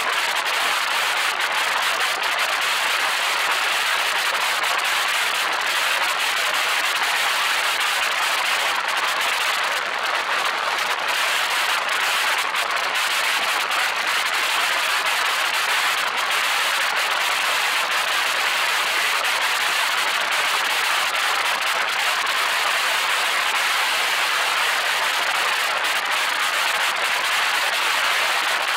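Steady rushing wind and road noise picked up by a camera mounted on the roof of a car driving at road speed.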